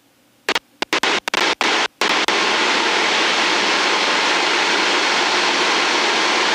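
Loud, steady rushing cockpit noise of an Extra 300 aerobatic aircraft in flight, engine and airflow heard through the intercom. It stutters on and off several times about half a second in, as the voice-activated intercom squelch opens and closes, then stays on steadily.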